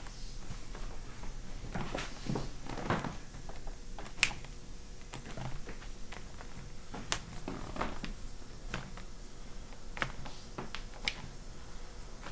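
Scattered sharp clicks and taps amid soft rustling and shuffling, the sharpest click about four seconds in.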